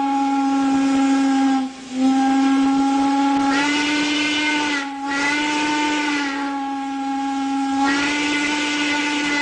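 Steam locomotive whistle blowing a long, steady note over a hiss of steam, broken by two brief gaps, about two seconds in and again near five seconds.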